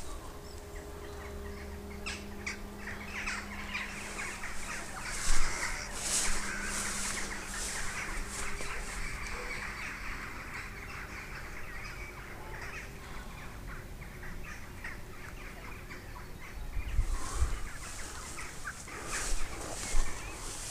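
Many birds calling and chattering at once in dense, overlapping short calls, with a faint steady low hum in the first half and a few low bumps on the microphone near the end.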